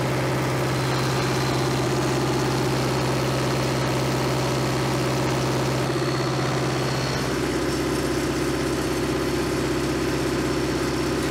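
Caterpillar D330C four-cylinder diesel engine of a standby generator running steadily at high throttle with no load on it. About seven seconds in its tone shifts slightly, the middle of the sound growing stronger.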